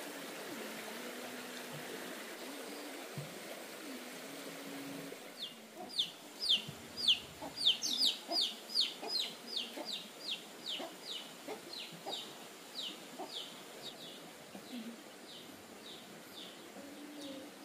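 An animal calling: a long run of short, high chirps, each falling in pitch, starting about five seconds in, about three a second at first and then slowing and fading, over a steady background hiss that drops away as the chirps begin.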